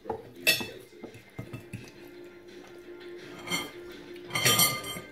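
Plates and serving dishes clattering and clinking on a dining table as food is taken from a platter, with a loud ringing clink about four and a half seconds in.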